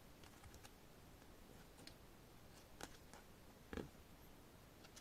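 Faint near-silence with light clicks and taps of glossy photocards handled and shuffled one by one. The two clearest taps come a little before and a little after the three-second mark, the second one the loudest.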